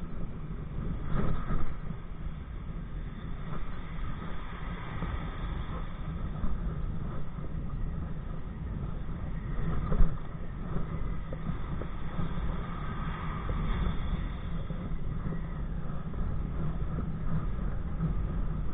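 Wind rumbling on a body-worn camera's microphone with water noise as a kite-pulled kayak moves along, with two louder knocks, about a second in and about halfway through.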